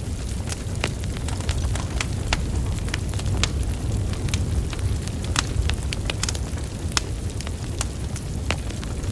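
Wood fire burning, with a steady low rumble of flames and many sharp, irregular crackles and pops from the logs.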